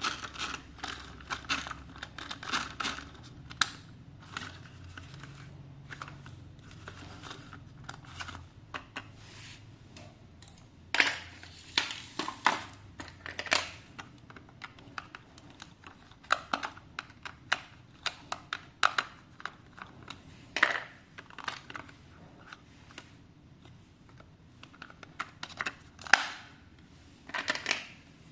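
Toy packaging being handled and opened: plastic and cardboard crinkling, with irregular sharp clicks and snaps.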